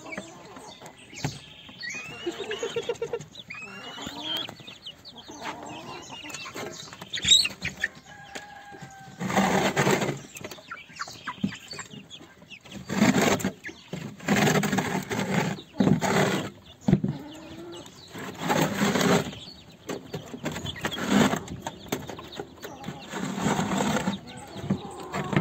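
Young lavender Cochin cockerels calling as they feed: thin peeping chirps at first, then from about a third of the way in a series of loud, harsh calls, each about a second long.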